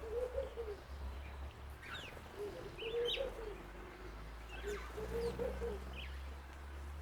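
A dove cooing in three low phrases of about a second each, with small songbirds giving short high chirps between and over them.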